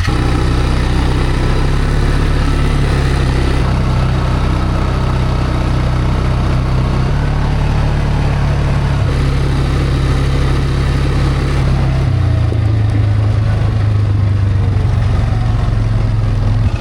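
A motor vehicle's engine running steadily just after starting, its pitch stepping up or down a few times as the speed changes.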